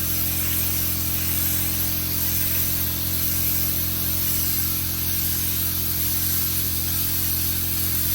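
Automotive paint spray gun spraying continuously, a steady hiss of air and paint, with a steady low motor hum underneath.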